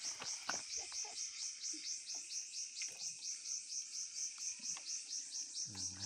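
Insects chirping in a steady high pulsing rhythm, about five pulses a second, with a few faint taps.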